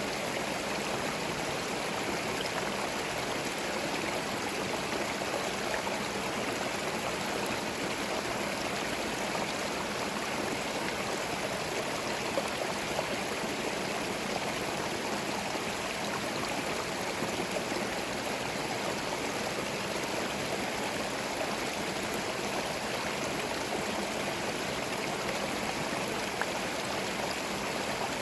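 Small forest stream running and babbling over stones, a steady, even rush of water.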